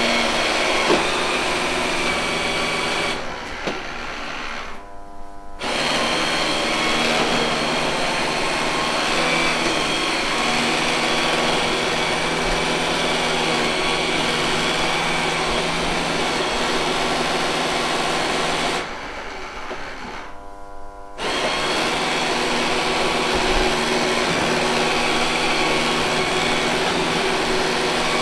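Robot vacuum cleaner running with a steady whir of its suction fan and brushes while stuck and struggling to free itself. The sound drops away twice for about two seconds, about 3 seconds in and about 19 seconds in, then comes back up.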